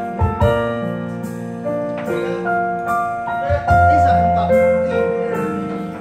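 Keyboard piano playing chords and a melody, notes struck and decaying, with a deep bass note entering about halfway through: a song's introduction before the singing starts.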